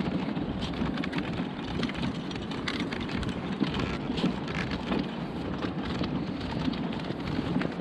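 Wind buffeting the microphone on an open beach: a steady rushing noise with irregular small crackles.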